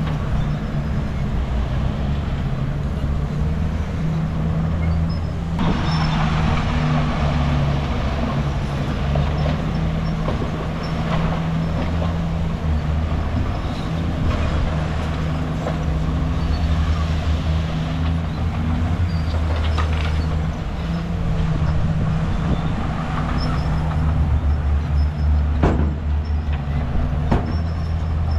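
Heavy diesel earthmoving machinery running with a steady low engine drone. A louder rush of noise comes in about six seconds in, and there are two sharp clanks near the end.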